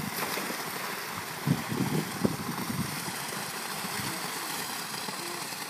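Steady hiss of swimming-pool water and its fountain jet, with a few soft low sloshes of water near the middle.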